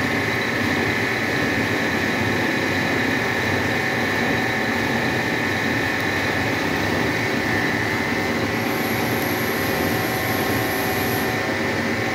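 Milling machine running, its end mill cutting the flats of a hexagonal bolt head on a metal blank held in a dividing-head chuck, with coolant applied: a steady mechanical hum with several held tones. A thin high whine joins for about three seconds near the end.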